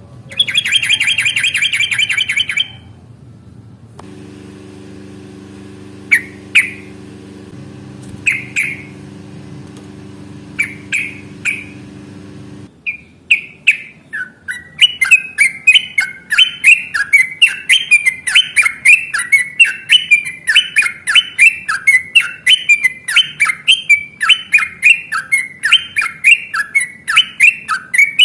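Yellow-vented bulbul (trucukan) singing: a loud burst of calls at the start, then a few scattered calls over a steady low hum, and from about 13 seconds in a long, fast, unbroken run of rising and falling notes, several a second, the bird's long 'ropel' song.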